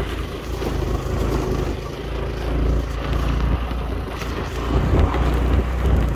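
Motor scooter riding along a dirt trail: the engine running under heavy low rumble and noise that rises and falls unevenly.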